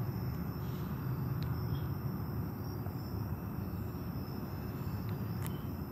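Steady low rumble of vehicle traffic around a parking lot, with faint high insect trilling over it.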